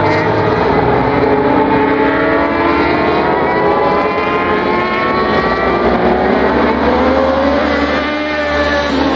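Several racing sport motorcycles' engines running hard at high revs through a set of corners, their overlapping engine notes mostly falling in pitch as they slow, with a note rising again near the end as a bike accelerates.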